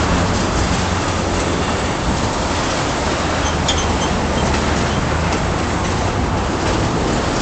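Ethanol tank cars of a freight train rolling past: a steady rumble and clatter of steel wheels on the rails.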